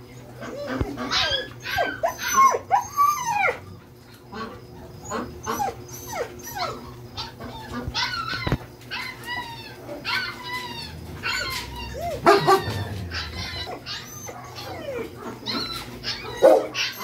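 A large pack of dogs crowded together, whining, yelping and barking over one another in a constant overlapping chorus of short calls.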